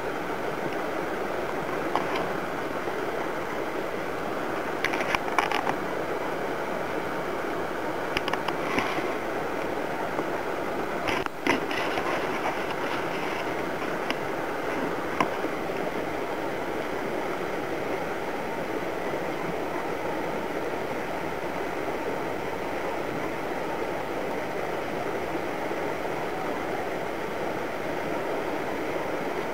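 Steady outdoor background rush with a few short, sharp clicks and crackles between about 5 and 15 seconds in.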